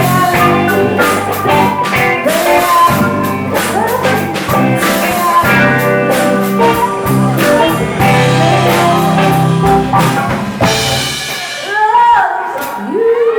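Live band playing a soul song with drum kit, bass and guitar. About eleven seconds in the bass and drums thin out, leaving sliding guitar notes.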